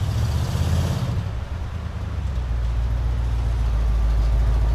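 A motor vehicle's engine running with a steady low rumble, swelling louder for about the first second.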